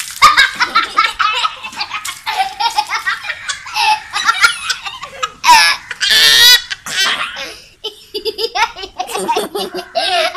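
Young children laughing hard in repeated high-pitched bursts of giggling, loudest about six seconds in.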